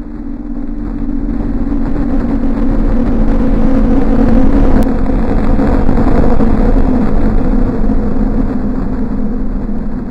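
A motor vehicle passing, its steady engine hum and road noise swelling over several seconds, loudest about midway, then fading.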